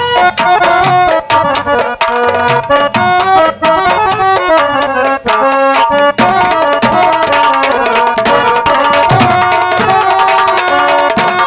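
Harmonium playing a song melody over dholak and naqqara drumming in a steady rhythm, with deeper bass drum strokes near the end.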